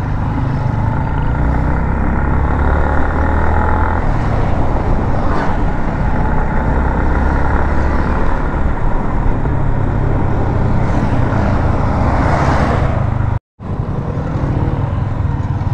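Motorcycle riding along a road: wind buffeting the microphone with the engine running underneath, steady throughout. The sound cuts out for a moment near the end.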